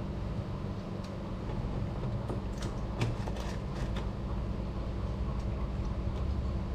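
A few light clicks about two to three and a half seconds in, from a socket wrench working the scooter's engine oil drain bolt loose, over a steady low hum.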